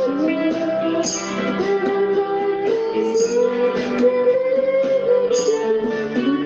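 Music with guitar, a slow melody of long held notes.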